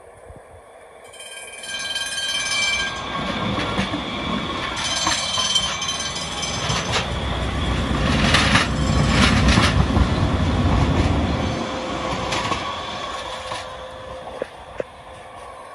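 A Breda light rail car rolling past close by on street track: high whining tones as it gets going, then the rumble of its wheels, loudest about halfway through, with sharp clacks of the wheels over rail joints and trackwork.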